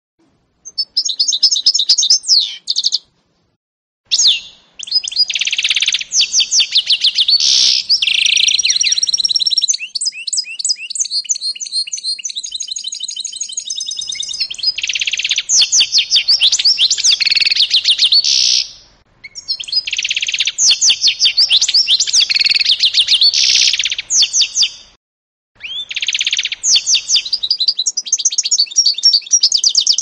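Canary × goldfinch mule (hybrid finch) singing in long, high, fast twittering phrases full of rapid trills, broken by short pauses, with a quieter rolling trill in the middle.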